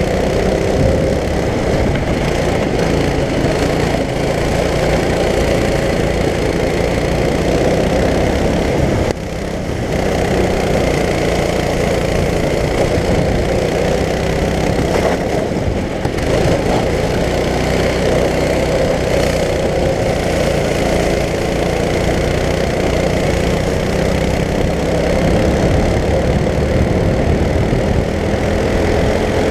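Performance go-kart engine running at racing speed, heard loud from on board the kart. The engine note drops sharply once about nine seconds in and briefly again around fifteen seconds in, then picks back up.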